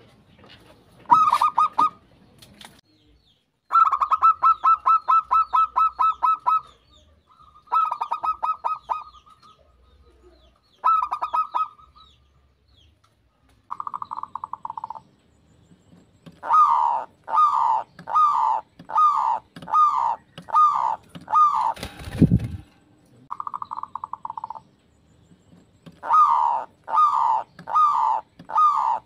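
Zebra doves (perkutut) cooing: phrases of rapid staccato notes, then a run of single coos about two a second. One dull thump about two-thirds of the way through.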